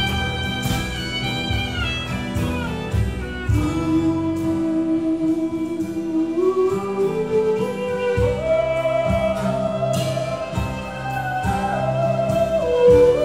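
Live Celtic folk band playing: fiddle, acoustic guitars, upright bass and drum kit. A long held melody line climbs step by step through the middle over a steady drum beat.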